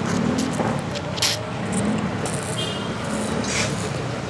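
Steady road traffic noise with a shifting engine hum, broken by a few short hisses about a second in and again near the end.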